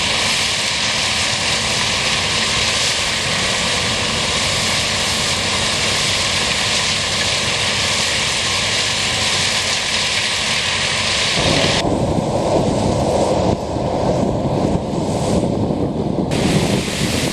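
Combine harvester running loud and steady while harvesting corn. About two-thirds of the way through, the sound turns lower and duller for about four seconds, then returns to its earlier character.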